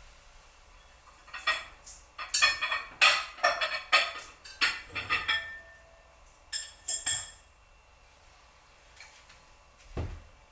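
Dishes and cutlery clinking and rattling as they are handled: a busy run of clinks over a few seconds, a couple more shortly after, and a dull thump near the end.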